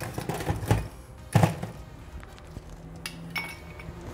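Ice being put into a glass tumbler: a few hard clunks of ice against glass, the loudest about a second and a half in, with lighter clicks later.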